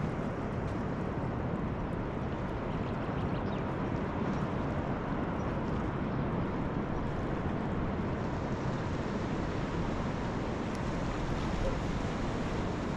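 Steady wind noise on an outdoor microphone, mixed with the low wash of water at the shore: an even rushing with no engine or other pitched sound in it.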